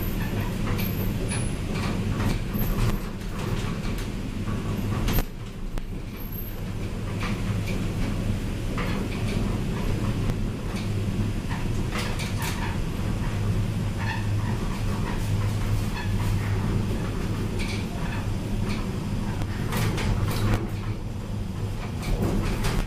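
1993 Tepper diagonal traction glass elevator car travelling along its inclined rails, heard from inside the car: a steady low hum with scattered clicks and knocks. There is a brief dip about five seconds in.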